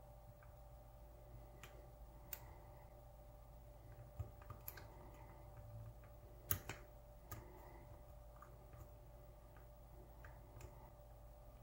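Faint, scattered clicks and taps of a hook pick working the pin stack of a pin-tumbler lock held under tension, about half a dozen in all, the sharpest about six and a half seconds in. A low steady hum sits underneath.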